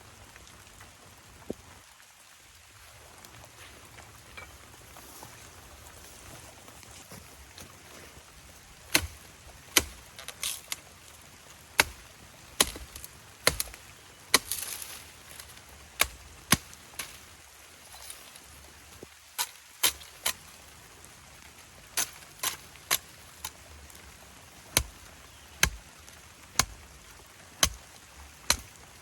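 Repeated sharp chopping blows, like a blade cutting into wood, about one a second, starting roughly a third of the way in and running in an irregular series.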